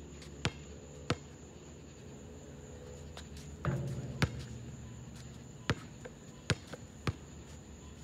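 Basketball bouncing on an asphalt court: single sharp bounces twice in the first second or so and three more near the end, with a louder knock that rings on briefly around the middle. A steady faint insect chirring sounds underneath.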